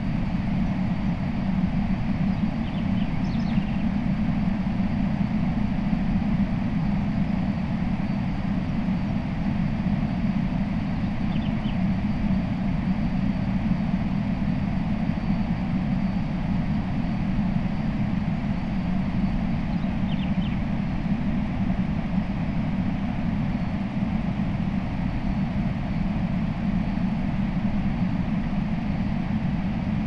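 Steady roar of a waterfall, an even rushing noise that does not change. A few faint short high chirps sound three times.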